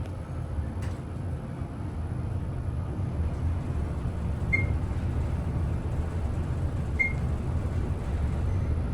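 Dover elevator car travelling, heard from inside the cab: a steady low rumble that grows a little louder about two seconds in, with a light click near the start and two short high beeps a couple of seconds apart.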